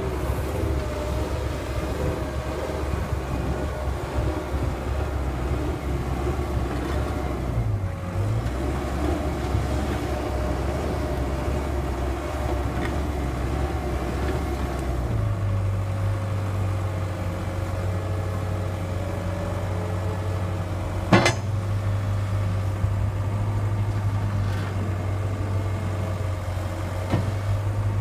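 Komatsu PW160-7 wheeled excavator's diesel engine running steadily, with a steady whining tone over the low engine drone. A single sharp click about two-thirds of the way through.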